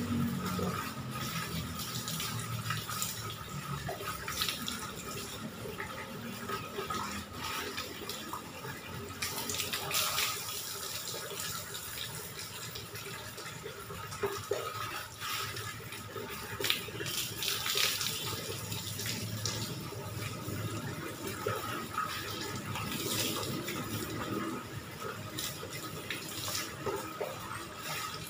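Water running steadily from a tap into a plastic bucket, with splashes every few seconds as a plastic dipper scoops from the bucket and water is poured over a bather onto a wet concrete floor.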